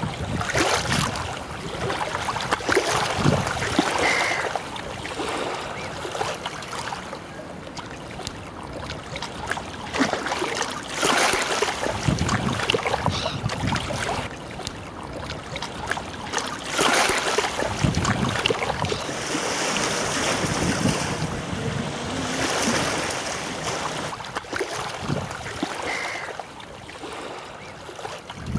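Gusty wind buffeting the microphone over choppy lake water lapping, swelling and easing in gusts. A couple of brief bird calls come through, about four seconds in and near the end.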